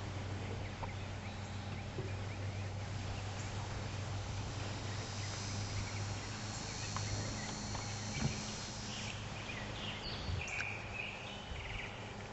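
Outdoor garden ambience with a steady low hum. A high, steady buzz runs from about five to nine seconds in, and a few short chirps come around ten seconds in.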